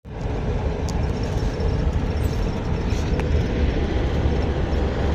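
Steady low engine rumble from a motor vehicle or road machine, with a few light clicks.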